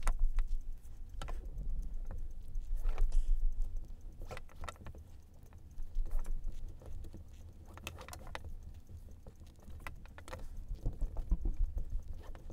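Double-braid rope rustling and scuffing as it is pulled through and wrapped around the turns of a monkey's fist knot by hand, with scattered light clicks and taps at uneven intervals. Dull low bumps from the handling come and go underneath.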